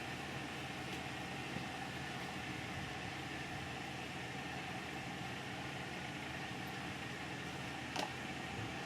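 Steady mechanical hum in the background, with one sharp click near the end.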